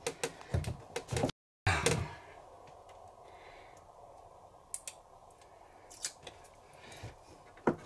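Sharp clicks and taps of magnet discs and hands against the window glass as a magnetic sun shade is fitted: a cluster of them in the first two seconds, then a few single clicks later on.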